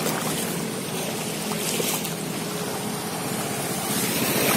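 Motorcycle engines running as bikes ride through floodwater, with the water washing and splashing around them. The sound grows louder near the end as a motorcycle passes close by.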